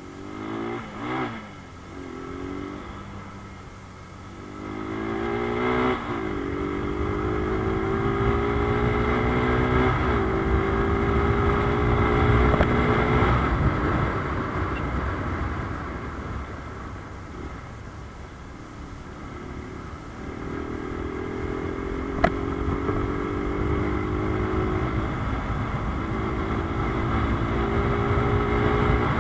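Rusi Gamma 200cc motorcycle's exhaust heard from the rider's seat, accelerating hard through several gears, the pitch climbing and dropping back at each upshift. Around the middle it eases off and falls in pitch, then pulls up through the gears again, with a single sharp click about two-thirds of the way in.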